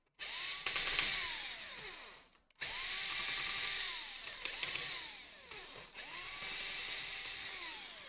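Small cordless electric screwdriver whirring as it backs out laptop heatsink screws, in three runs, the motor's pitch falling away at the end of each.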